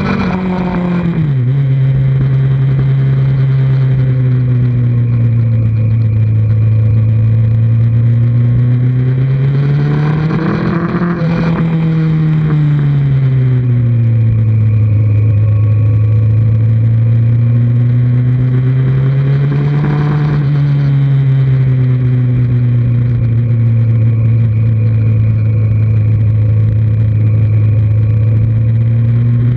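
2003 Kawasaki Z1000's inline-four engine heard from the bike while riding, running at a steady cruise. The pitch drops sharply about a second in, then rises as the throttle opens about ten and again about twenty seconds in, easing back down after each, over a steady rushing noise.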